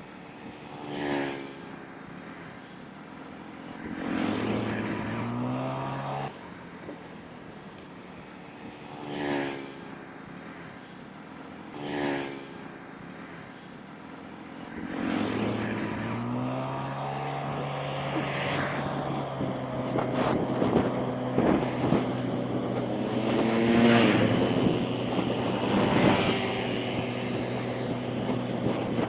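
Motorbike engine on the road. In the first half, a few vehicles pass close by, each a short swell that falls in pitch. About halfway in, the bike's engine pulls away and accelerates, then runs on under load with rising engine pitch and wind noise.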